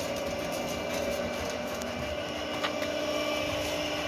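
Home-built vertical-auger grain mixer running nearly empty, its 2.2 kW three-phase electric motor driving the auger through a V-belt and pulley with a steady hum.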